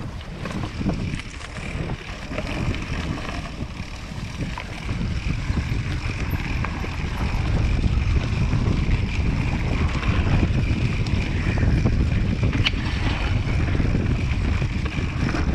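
Wind rushing over the microphone and the rumble of a hardtail mountain bike's tyres and frame on a rough singletrack descent, getting louder about halfway through, with light rattles and one sharp knock late on.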